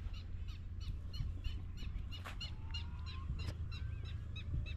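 A bird repeating short, high calls about five times a second over a steady low rumble, with two sharp clicks in the middle.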